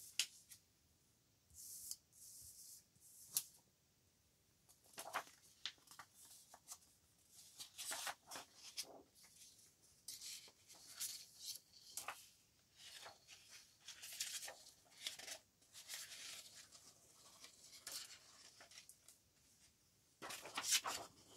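Printed paper sheets and inkjet transparency film rustling and crackling as they are handled, flipped and laid over one another, in short scattered rustles, with a longer, louder one near the end.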